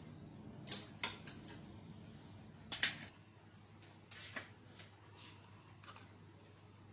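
Small metal cake tins knocking and clinking against metal tongs, a steel tray and a wire rack as they are lifted and set down: about seven short, sharp clinks spread out irregularly, the loudest a little under three seconds in.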